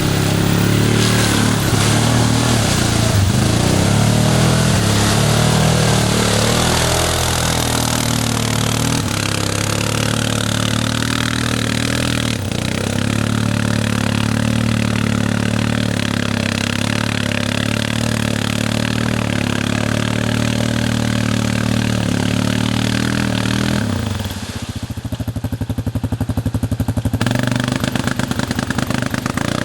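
ATV engine running under load, its pitch rising and falling over the first several seconds and then holding steady. About 24 seconds in it drops to low revs with individual firing pulses audible, then picks up again about three seconds later.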